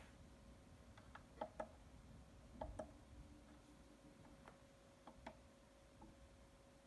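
Near silence: faint room tone with a steady low hum and scattered faint clicks, many in pairs about a sixth of a second apart.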